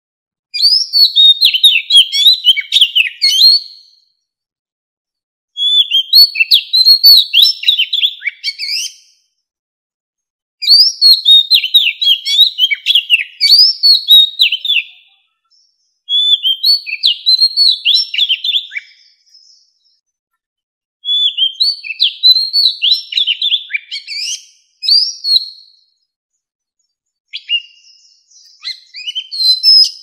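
Oriental magpie-robin song from a mature wild bird: about six bouts of a few seconds each, rapid, varied whistled notes, with short silent gaps between bouts.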